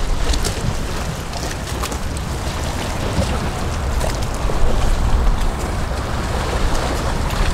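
Wind buffeting the microphone in a heavy, fluctuating rumble, over the wash of the sea.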